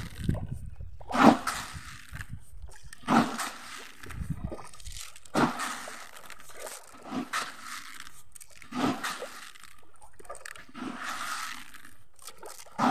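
Short, sudden splashing and crunching sounds about every two seconds over pond water, from fish feed being scooped and thrown onto a fish pond.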